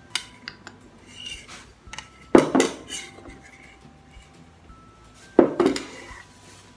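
A metal spoon knocking against a bowl: a few light clinks, then two loud knocks about three seconds apart, each ringing briefly.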